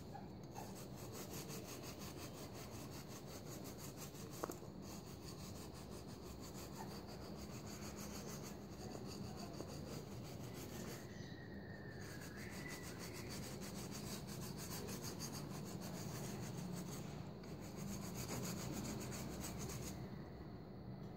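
A red abrasive block rubbed rapidly back and forth along a rusted sword blade, scrubbing off the rust crust, with a few short pauses between runs of strokes. A single sharp click sounds about four and a half seconds in.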